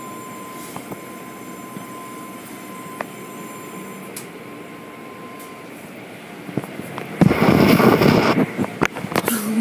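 Automatic car wash tunnel machinery running steadily, with a faint steady tone that stops partway through and a few light clicks. About seven seconds in, a loud rush of noise lasts about a second and a half, followed by several knocks.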